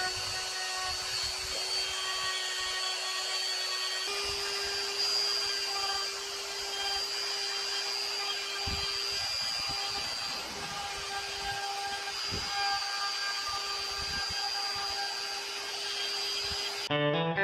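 Electric die grinder with a saber-tooth bit running at a steady high-pitched whine while cutting into pine wood; its pitch steps up slightly about four seconds in.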